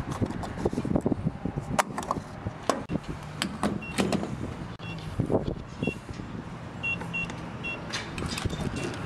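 Refuelling a pickup truck at a gas pump: clicks and knocks of the fuel cap and pump nozzle going into the filler neck, over a steady low hum. A few short high beeps come in the second half.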